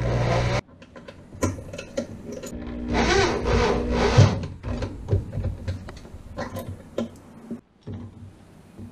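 Electric drill driving a screw into the wooden thwart of a small boat. The motor runs until it stops abruptly about half a second in, then runs again for about a second and a half near the middle, with small clicks and knocks in between as the screw seats.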